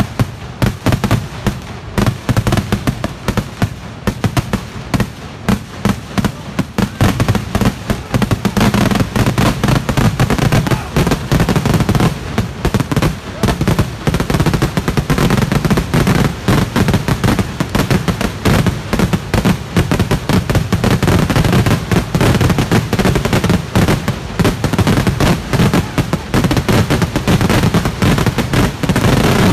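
A ground-level fireworks display: firecrackers bang in a rapid, unbroken crackling string. About eight seconds in, the barrage grows denser and louder.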